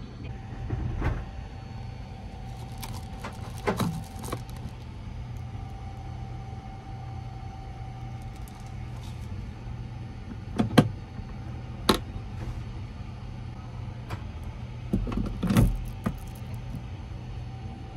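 Steady low hum of the Sunrise Seto sleeper train heard inside the compartment, with a faint steady whine. Over it come several short clicks, knocks and crinkles of small objects being handled, such as a plastic-wrapped cup. The loudest of these come near the end.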